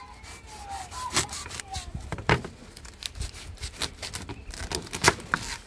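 A chef's knife cutting through the dry, charred husk and stem end of a grilled ear of corn, with irregular crunching crackles and a few sharper snaps.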